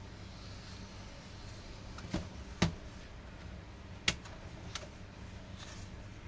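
A few short clicks and knocks of laptop parts being handled during disassembly, about four in all, the loudest two coming a second and a half apart, over a steady low hum.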